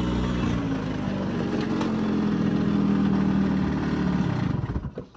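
Engine idling steadily, then stopping about four and a half seconds in.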